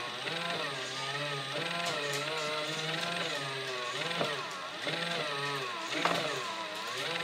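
Small battery motor of a toy pottery wheel whirring steadily, its pitch wavering up and down as hands press on the spinning clay.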